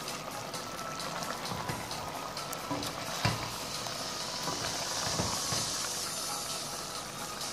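Stew of chicken liver, gizzard and vegetables in tomato sauce simmering in a steel pot, with steady fine crackling, as a spatula stirs it; one sharp knock about three seconds in.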